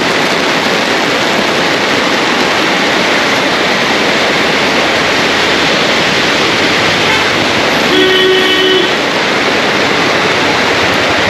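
Heavy monsoon rain falling steadily on an umbrella overhead and on the wet street. About eight seconds in a vehicle horn sounds once for about a second.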